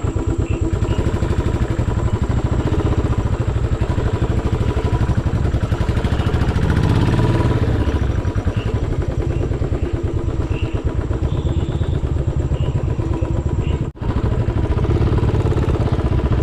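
Royal Enfield motorcycle engine running steadily under the rider, picking up a little about halfway through. It briefly cuts out about two seconds before the end.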